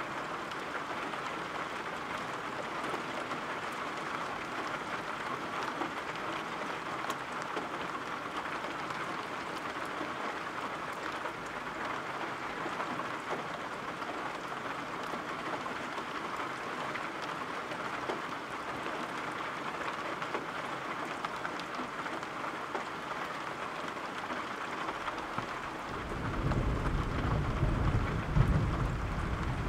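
Steady rain falling, an even hiss. About 26 seconds in a low roll of thunder starts and builds, loudest near the end.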